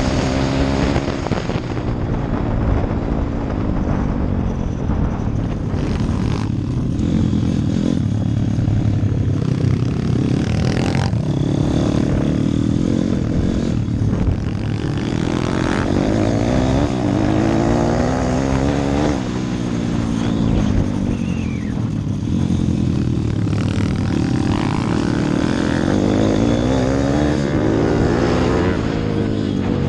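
Small single-cylinder pit bike engine running hard close to the microphone, its pitch rising and falling again and again as the rider opens the throttle and eases off through the corners.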